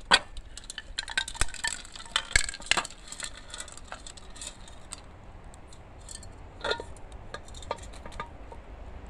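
Boiled chitons tipped from an aluminium pot into a metal pan, their shells clattering and clinking against the metal in a quick run of clicks over the first three seconds, then a few scattered clinks.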